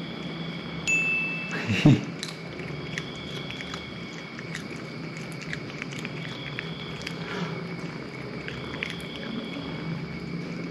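A cat crunching and chewing a beetle, with small scattered clicks of chewing. About a second in, a bell-like ding and then a sharp click, the loudest sound, in the manner of a subscribe-button sound effect.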